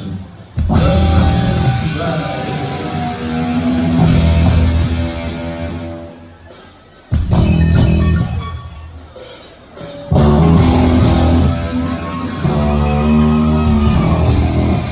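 Live heavy rock band playing loud, with distorted electric guitar and drums; the music breaks off briefly a few times between riffs.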